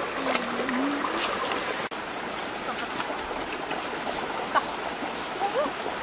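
Steady rush of flowing water, with a few brief voices over it. The sound breaks off for an instant about two seconds in.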